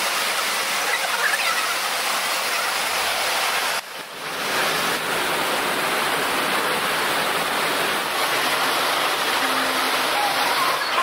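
Water gushing through the sluices of a canal lock gate as the lock chamber fills, a loud steady rush that drops out briefly about four seconds in.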